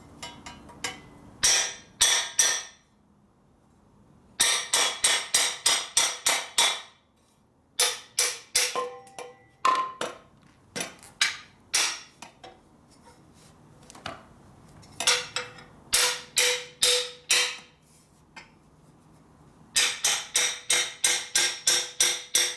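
Runs of sharp metallic hammer blows on a steel drift driven into the end of a motorcycle exhaust pipe to stretch it wider, the pipe ringing briefly after each strike. The blows come about three or four a second in several bursts, with short pauses between them.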